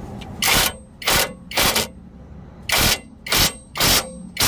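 Ratchet wrench tightening a nut on a tie rod end bolt: about six quick ratcheting strokes in two groups of three.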